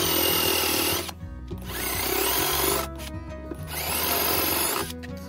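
Cordless drill with a countersink bit boring screw holes into wood, three bursts of about a second each, the motor whine rising as it spins up at the start of each.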